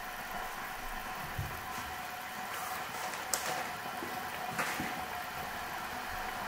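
Saucepan of water heating toward the boil on a hob with dry noodles standing in it: a steady hiss of simmering water with a faint hum and a couple of faint ticks.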